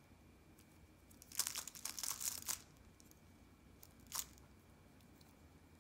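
3x3 Rubik's cube being turned by hand: a quick run of plastic clicking turns for about a second, then one more single turn a little later.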